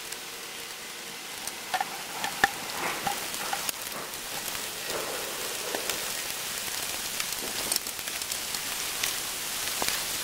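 Heavy rain pouring down: a steady hiss with scattered ticks of drops.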